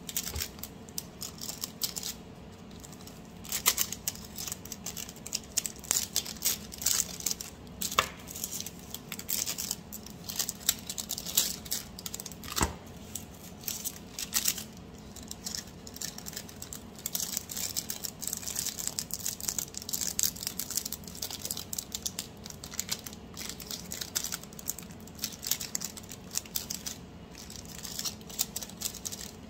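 Clear plastic treat bags crinkling and rustling as they are handled and filled by hand, with a couple of light knocks in the middle.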